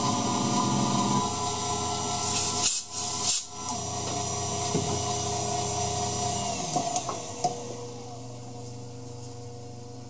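Treadmill-motor-driven mini mill running, its end mill cutting aluminium plate: a steady motor whine over the scraping of the cut. Two loud knocks come about three seconds in, and the sound grows quieter from about seven seconds on.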